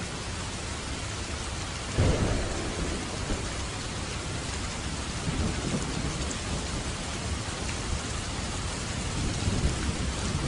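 Steady heavy rain, with a sudden low rumble of thunder about two seconds in and fainter rumbles later.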